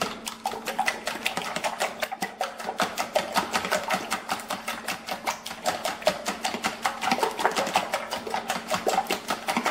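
A fork beating liquid egg whites in a plastic tub, making a rapid, steady clicking and sloshing of several strokes a second.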